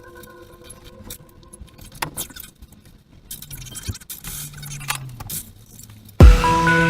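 Scattered light metallic clinks and rattles, with a faint low hum under them. Loud music with a beat cuts in near the end.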